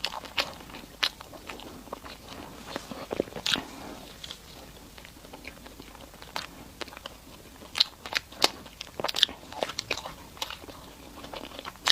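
A person biting and chewing food close to the microphone: irregular, sharp wet mouth clicks and crunches, coming thickest a little past the middle.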